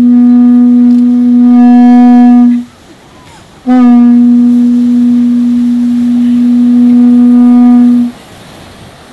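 Hawaiian conch shell horn blown in two long, loud, steady blasts on one pitch, the first about two and a half seconds long and the second about four and a half seconds, with a short pause between.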